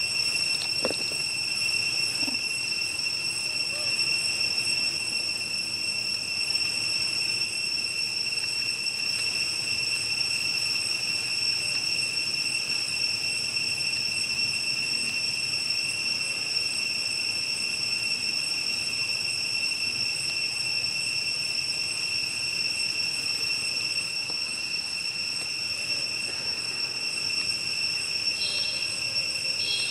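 Insects droning in one steady, unbroken high-pitched tone with overtones above it.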